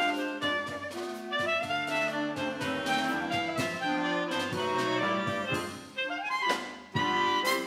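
Clarinet ensemble playing a brisk, light choro-style arrangement, an E♭ clarinet leading the melody over the other clarinets, with a drum kit keeping time and hitting strong accents near the end.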